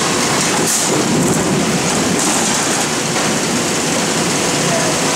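Potato grading line running: red potatoes clattering and tumbling along the steel conveyor past a row of pneumatic sorting paddles. The sound is a loud, steady, dense rumble.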